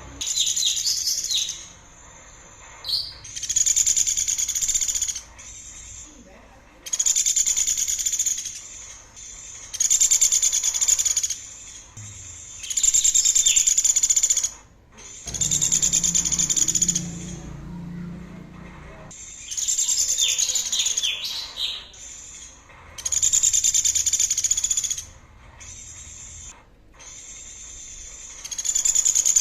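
A songbird singing a repeated high, buzzy trilled phrase about one to two seconds long, roughly every three seconds, with a few quick falling chirps between some phrases.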